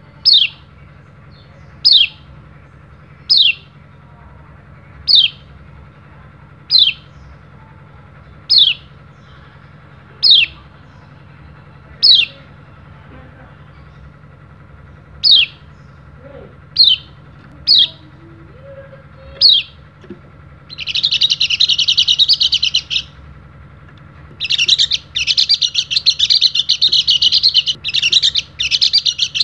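Caged pleci dakun (yellow-breasted white-eye) calling: twelve single, sharp, down-sliding 'ciak' chirps about one to two seconds apart. About two-thirds of the way in it breaks into a fast, dense warbling song, first a two-second burst, then after a short pause a long unbroken run: the long 'nembak' song.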